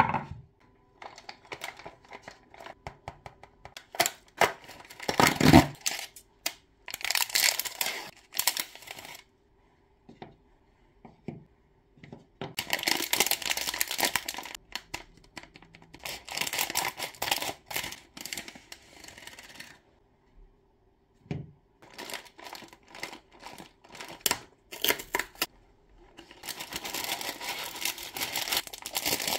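Plastic ice-cream wrappers being handled and torn open, crinkling and crackling in bursts with short pauses, with clear plastic film being peeled off a cardboard box near the end. A heavy thump about five seconds in.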